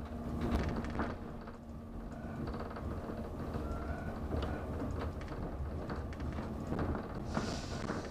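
Cabin noise of the Mont Blanc Express train running on its rails: a steady low rumble with scattered clicks and knocks from the wheels, and a brief hiss near the end.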